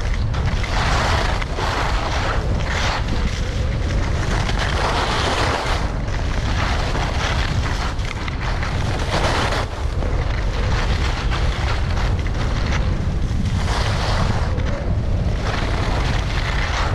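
Wind buffeting the microphone of a skier's camera during a fast downhill run, a steady low rumble, with the hiss and scrape of skis on hard-packed snow swelling and fading every second or two through the turns.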